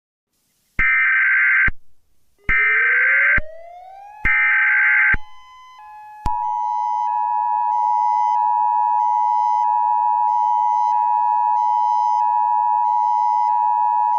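Emergency Alert System tones: three short buzzing bursts of SAME header data about a second apart, with a tone gliding upward under the second burst. From about six seconds in, the long, steady two-tone attention signal sounds, with a higher tone alternating about twice a second above it.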